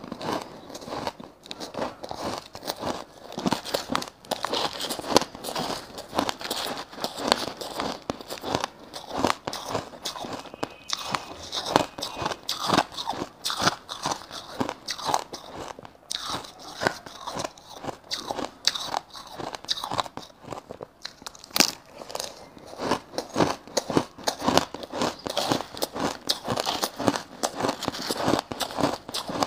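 Crushed shaved ice being bitten and chewed in the mouth, a continuous dense stream of crisp crunches and crackles.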